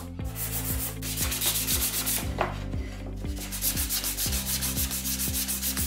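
An abrasive hand tool rubbing along the edges of a wooden jig in quick, even back-and-forth strokes, with a short break a little after two seconds.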